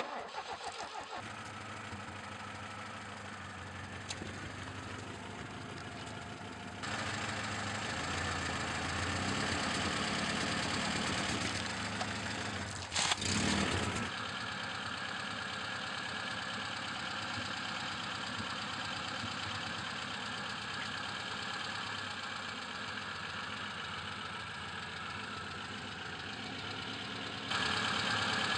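Car engine idling as the car creeps forward, heard at ground level beside a wheel. There is a brief loud burst of noise about halfway through.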